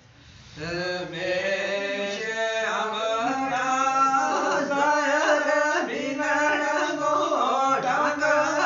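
A man singing a Gojri bait, a folk song, with no instruments, in long drawn-out wavering lines. The voice pauses briefly for breath at the start and comes back about half a second in, then carries on without a break.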